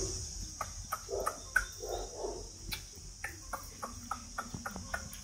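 Steady high chirring of insects, with many short, irregular light clicks scattered through it.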